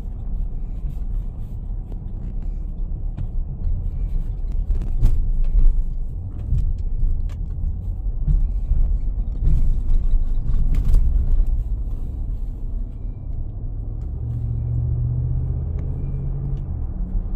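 Low engine rumble of heavy machinery running, with scattered knocks in the middle and a steadier engine hum near the end.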